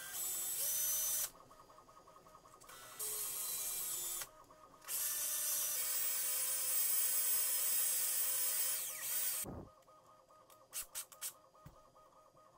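A small power tool running steadily, with three bursts of loud, high hissing noise, the last and longest about five seconds, cutting off about nine and a half seconds in.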